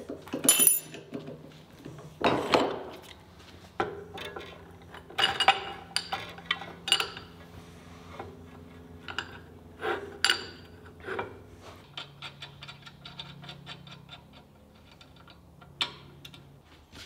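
Metal band saw blade guide parts and hand tools clicking and clinking as the new roller-bearing blade guides are handled and fitted to the saw: scattered sharp metallic taps with a short ring, then a fast run of small ticks near the end.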